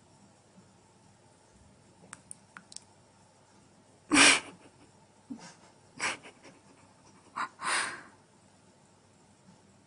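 Short, harsh animal noises: four bursts over about four seconds, the first the loudest, after a few faint clicks.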